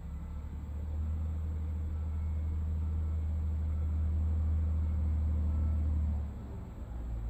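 Heavy diesel engine of a big excavator running with a steady low drone. It works harder from about a second in and eases off about six seconds in.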